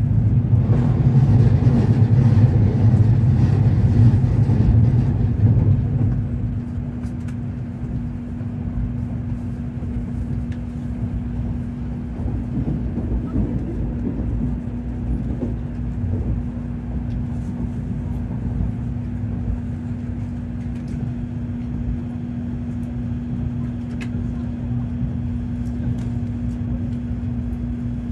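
Shinkansen train running, heard from inside the passenger cabin: a steady low rumble with a constant hum, louder for about the first six seconds while passing under an overpass, then settling to an even level.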